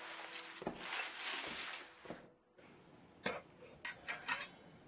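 A steady hiss, then after a brief silence several light, sharp clinks as the glass lid of a cooking pot is lifted off the pot.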